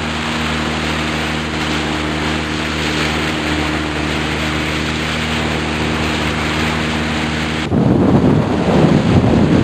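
A boat's motor running steadily under the rush of water. Near the end it gives way abruptly to wind buffeting the microphone over water.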